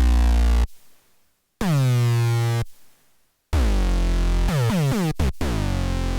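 Arturia MiniFreak synthesizer playing a deep bass preset: held low notes about a second long with short gaps between them, each starting bright and turning darker as its filter closes. The last phrase holds longer and breaks into a few quick notes near the end.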